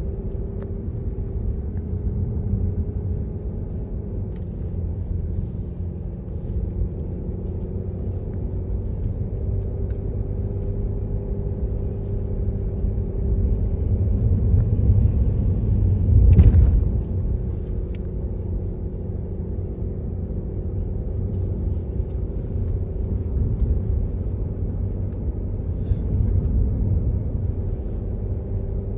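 Steady low rumble of a moving vehicle heard from inside the cabin, with a faint steady drone. It swells about halfway through, with one brief thump at its loudest point.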